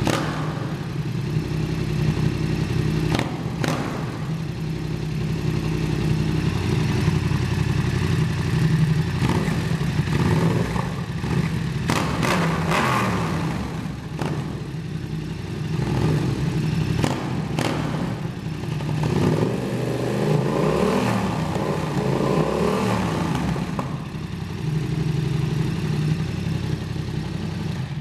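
Yamaha XSR700's 689 cc parallel-twin engine running through an aftermarket slip-on exhaust, idling steadily and revved up briefly a few times. A few short sharp cracks stand out here and there.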